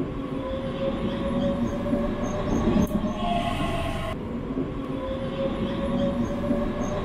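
Train running on rails: a steady rumble with a few held whining tones. About four seconds in the sound cuts off abruptly and the same stretch of train sound starts over, a repeated loop.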